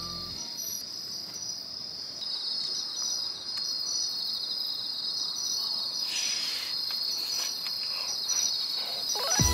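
Crickets chirping in a steady, high, finely pulsing trill, with a brief soft noise about six seconds in.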